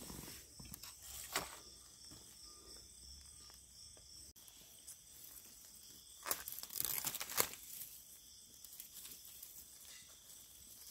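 Dry leaf litter and twigs rustling and crackling as a hand brushes them off a yellow Amanita egg mushroom and picks it. The crackling is loudest from about six to seven and a half seconds in. Insects keep up a steady high chirring underneath.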